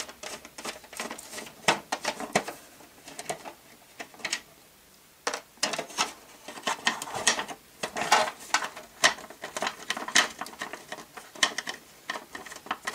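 A screwdriver turns small metal screws out of the hard plastic underside of a Palitoy Pippa Range Rover toy, making irregular clicks and scrapes as the toy body is handled. It goes quiet for about a second just before halfway.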